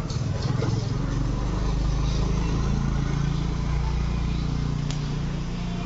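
A motor running steadily nearby with a low hum, and a brief click about five seconds in.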